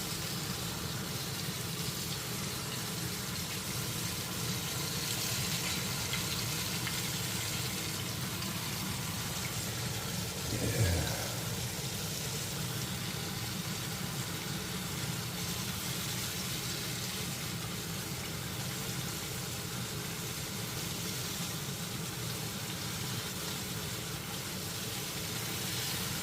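Batter-coated fish goujons deep-frying in hot oil: a steady sizzle, with one brief louder sound about eleven seconds in.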